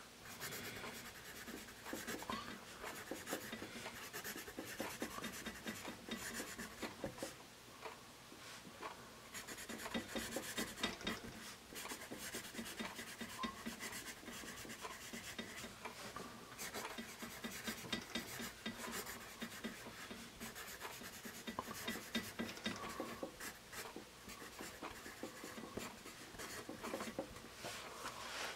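Paper Mate Mirado Black Warrior #2/HB graphite pencil writing cursive on graph paper: a steady run of scratchy strokes of the lead on the page, with short pauses between words.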